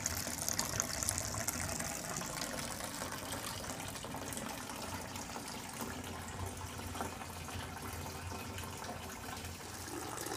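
Fresh apple juice running in a steady thin stream from a cider press's drain spout into a bucket, a continuous pouring, filling sound.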